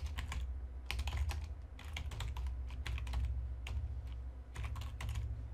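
Typing on a computer keyboard: irregular bursts of quick key clicks with short pauses between them, over a low hum.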